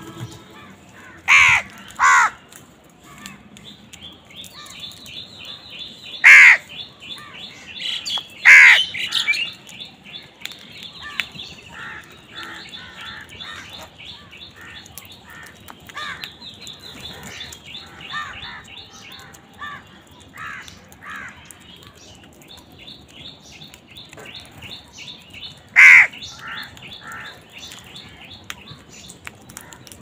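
A flock of house crows cawing while feeding. There are loud single caws, two just after the start, two more between about six and nine seconds in, and one near the end, over a steady background of fast, high chirping from smaller birds.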